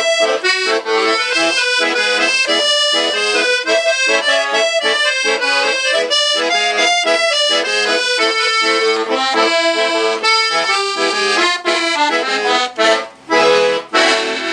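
Accordion playing a lively traditional tune in full chords, ending with a few short, separated chords over the last two seconds.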